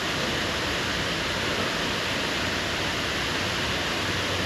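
Steady rushing of fast-flowing floodwater, an even roar of water without a break.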